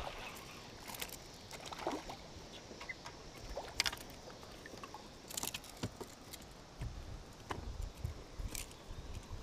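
Drift boat on a river: scattered light knocks and clicks from the boat over a low rush of water, with some low rumbling about seven seconds in.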